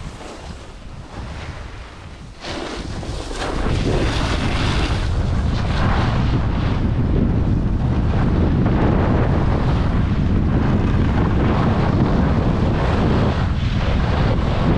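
Wind buffeting the microphone of a skier going downhill, a steady rushing noise that grows much louder about two and a half seconds in and again a little later, then holds.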